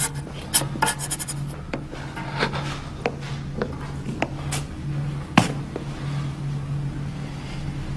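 Scattered light clicks and rustling, then a sharp click of a door knob being turned about five and a half seconds in, over a low steady hum.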